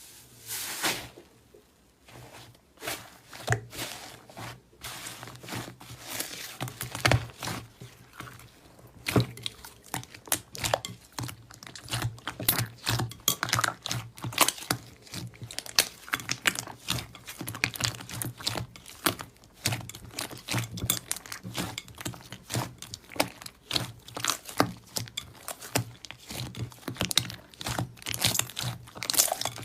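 Slime being squeezed and worked by hand, giving a dense run of small crackles and pops that grows thicker after the first few seconds.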